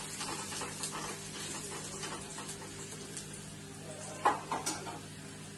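Onions frying in oil in a small kadhai for a tadka, sizzling softly as a spoon stirs them. Faint spoon clicks run through it, with two sharper knocks of the spoon on the pan a little after four seconds in, over a steady low hum.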